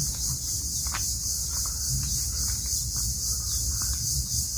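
Steady, high-pitched chorus of insects, evenly pulsing, over a low hum, with a faint click about a second in.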